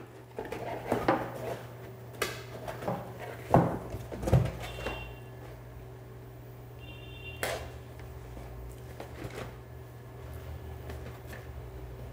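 A cardboard product box being handled and turned over by hand: scattered knocks, scrapes and rustles, thickest in the first few seconds with another knock about halfway through, over a steady low hum.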